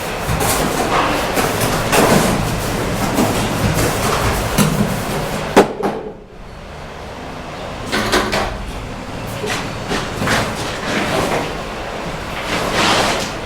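Bricklaying with cement bricks: a steel trowel scraping and slapping mortar and knocking bricks into place. The scrapes and knocks come in irregular runs, with one sharp knock about five and a half seconds in.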